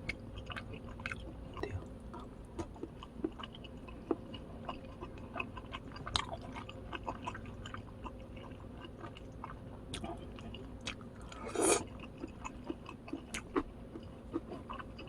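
Close-miked chewing and biting of food: a run of small irregular mouth clicks and ticks, with one louder noisy burst a little before the end.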